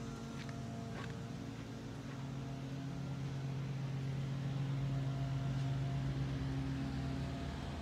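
A steady low machine hum that grows a little louder about halfway through.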